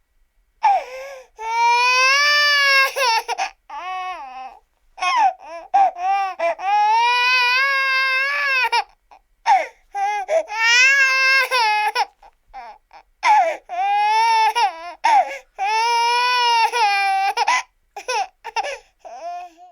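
Infant crying: a series of high-pitched wails, each one to three seconds long, broken by short gasping breaths and a few shorter sobs near the end.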